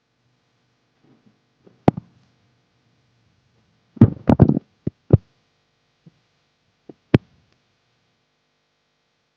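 Sharp knocks and clicks of small hard objects: two close together about two seconds in, a quick cluster of five or six about four seconds in, then a few single ones spaced out.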